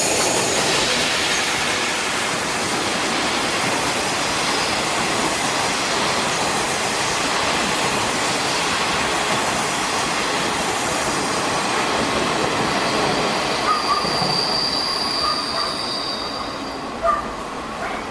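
A train of unpowered diesel railcars hauled by an EF81 electric locomotive rolling past with a steady rumble of wheels on rail, and a high wheel squeal for about a second and a half late on. A few short sharp sounds come near the end.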